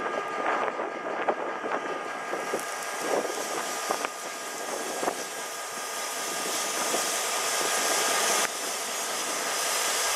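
Illinois Central 9571 diesel locomotive idling steadily, with a few sharp metallic knocks at the coupling in the first half as the train is tied together. A rushing hiss builds from about the middle, dips briefly near the end, then rises again.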